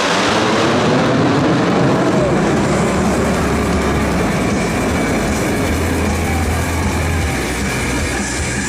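KAI T-50B jets of the Black Eagles team roaring past, the sound sweeping in pitch over the first few seconds, then a steady deep rumble.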